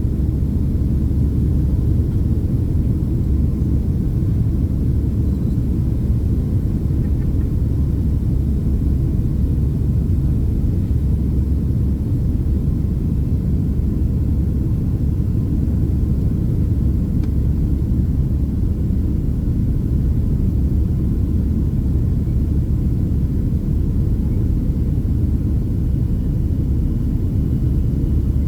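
Steady low rumble inside the passenger cabin of a Boeing 767-300ER airliner in flight: engine and airflow noise through the fuselage, unchanging throughout.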